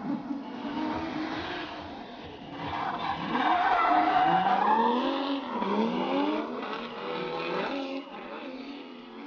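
Two drift cars sliding in tandem, their engines revving up and down over and over, with tyres skidding and squealing. The sound is loudest as they pass about four seconds in.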